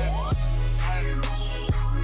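Background hip hop-style music with a heavy, sliding bass and a steady beat.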